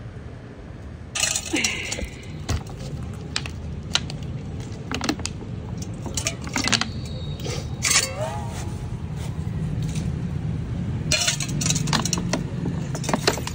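Clinks, knocks and scrapes of a stainless-steel bowl and a plastic water bottle being handled on a tiled floor, starting about a second in.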